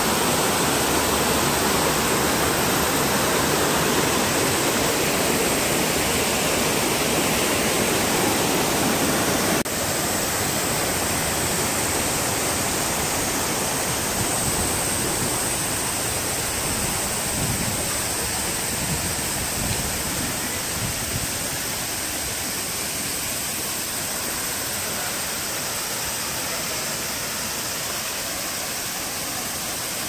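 Rushing water of a rocky mountain stream, a steady wash of water noise. It drops a little, suddenly, about ten seconds in and grows slightly fainter towards the end.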